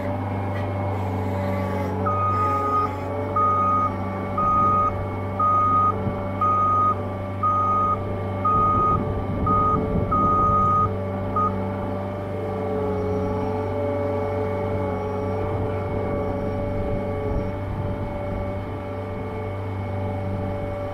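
Loader tractor engine running steadily while the tractor backs away with a full bucket. From about two seconds in, a reversing alarm beeps about once a second for roughly ten seconds, then stops while the engine runs on.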